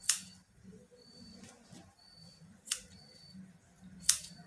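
Scissors snipping black fabric: three sharp snips, one right at the start, one about 2.7 seconds in and one about 4 seconds in.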